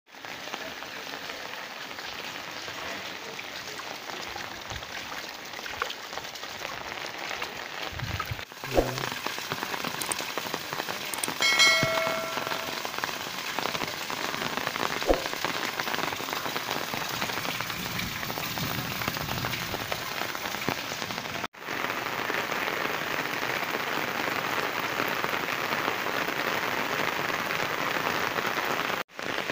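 Steady monsoon rain falling on waterlogged ground and puddles, with a short ringing tone about twelve seconds in.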